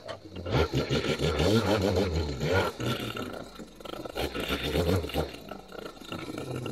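Backpack leaf blower's engine revving up and down as the throttle is worked, with a second burst of revs about four seconds in before it eases off near the end.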